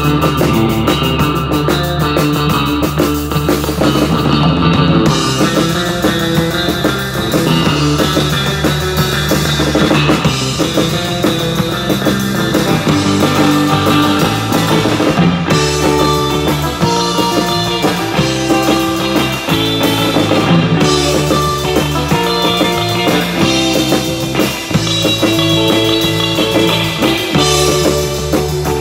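Live surf rock instrumental: an electric guitar playing the lead over a drum kit and a second electric guitar, the band playing steadily without a break.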